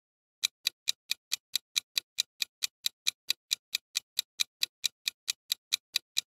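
Clock-ticking sound effect for a quiz countdown timer: sharp, evenly spaced ticks, about four and a half a second, starting about half a second in.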